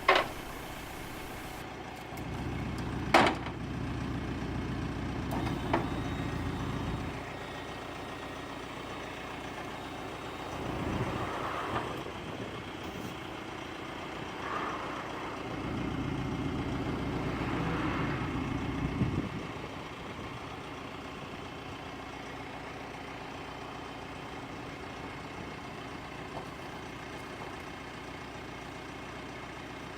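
Diesel engine of a DAF LF 45.160 7.5-tonne lorry running with a steady hum, swelling louder a few times. There is a sharp knock about three seconds in.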